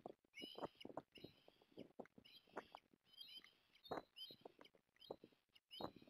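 Ospreys calling: a faint, steady run of short, high whistled chirps, about two a second, over scattered soft taps and knocks.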